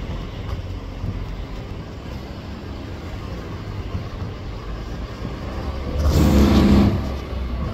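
Fireworks display going off: a continuous rumble of bursts with a few sharper bangs, swelling louder about six seconds in.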